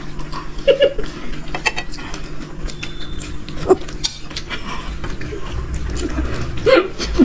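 Close-up eating sounds of people chewing steamed mutton momos: wet mouth clicks and smacks, with brief voiced sounds about a second in, near the middle and near the end.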